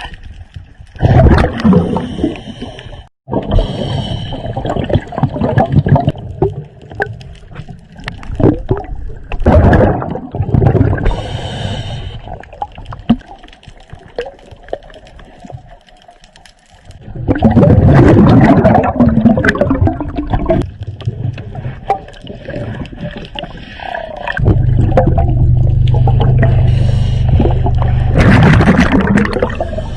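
A scuba diver's regulator breathing underwater: irregular loud bursts of gurgling exhaled bubbles. A steady low hum joins about two-thirds of the way in.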